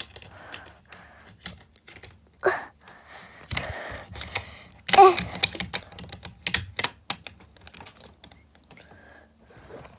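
Irregular small clicks and rustles of hands fiddling with a string of fairy lights, with louder rustling bursts in the middle, the loudest about five seconds in.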